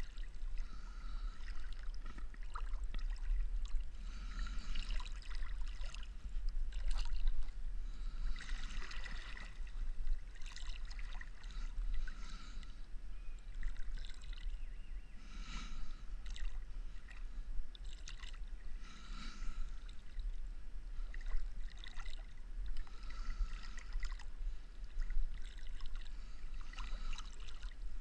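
Paddle strokes in lake water: a splash and trickle of water coming back about every three to four seconds, over a low steady rumble.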